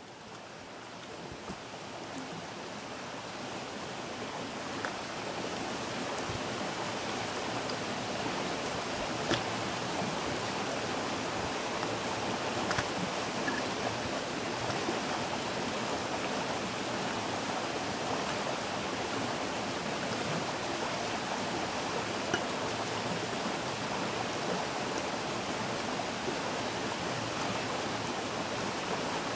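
Alcohol camp stove burning steadily under a pot of water: an even hiss with a few faint ticks, swelling in over the first few seconds.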